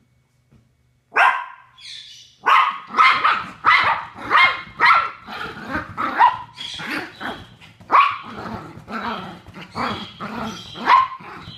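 A chihuahua barking in a frantic run: one bark about a second in, then from about two and a half seconds a steady string of sharp barks, about two a second. The dog is alarm-barking at deer it has seen outside the window.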